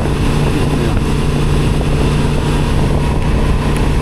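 Honda Transalp XL750's parallel-twin engine running steadily under way, with a constant rush of wind noise. The bike is in its rain riding mode, which the rider says holds the engine back however far he opens the throttle.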